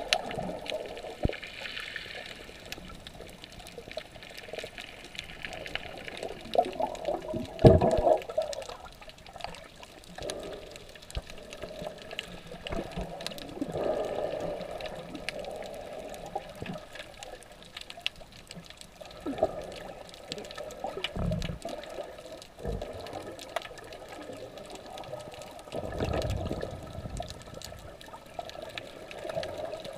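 Water sloshing and churning around a camera held underwater, muffled, in uneven surges with the strongest about eight seconds in. Faint crackling clicks run underneath.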